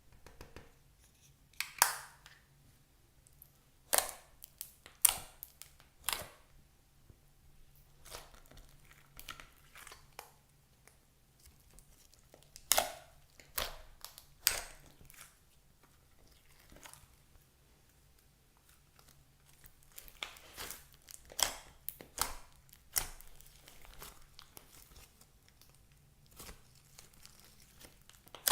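Slime being squeezed and stretched by hand, giving off irregular sharp pops and crackles, with a quieter stretch about two-thirds of the way in.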